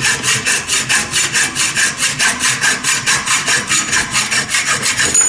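Hacksaw cutting stainless steel tubing clamped in a bench vise, in fast, even strokes of about five a second. The sawing stops just at the end with a brief high ring.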